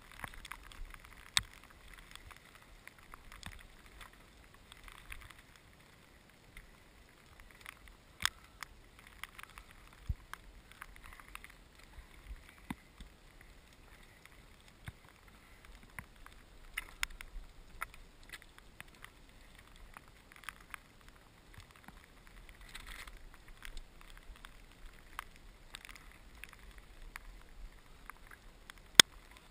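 Raindrops striking the camera housing: irregular sharp ticks scattered through, with a louder one near the end, over a faint steady hiss.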